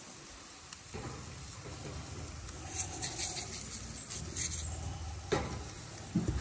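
Seasoning being shaken from a bottle over burgers on a gas grill. It comes as a few short bursts of light, scratchy patter over a low steady rumble, with two brief louder sounds near the end.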